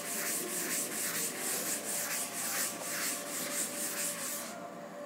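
A cloth wiping a chalkboard clean in quick back-and-forth strokes, an even swishing rub about four strokes a second that stops near the end.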